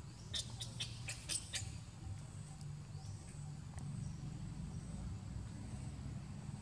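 A monkey giving a quick run of about half a dozen short, high squeaks in the first second and a half, with one more faint rising squeak a little later, over a steady low hum.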